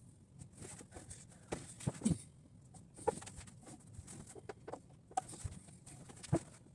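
Scattered light knocks and taps of plastic chess pieces being lifted and set down on a board on a wooden table. The louder knocks come about two, three, five and six seconds in.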